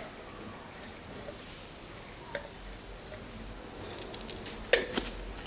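Faint handling sounds as black pepper is shaken from a plastic spice shaker over minced meat in a bowl: a light pattering, then a few sharp clicks and taps near the end.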